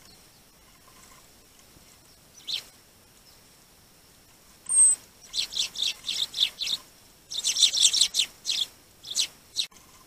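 Eurasian tree sparrows chirping: a single chirp about two and a half seconds in, then from about five seconds a loud high note and a quick run of chirps, busiest around eight seconds, thinning out to a couple of last chirps near the end.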